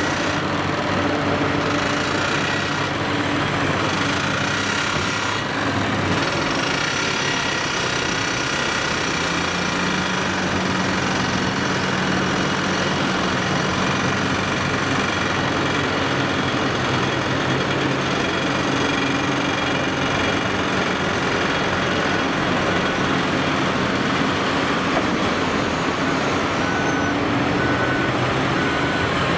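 Caterpillar 6015B hydraulic mining excavator's diesel engine and hydraulic pumps running under load as it digs, swings and dumps dirt, a steady heavy machine noise with whining tones. A repeating beep comes in near the end.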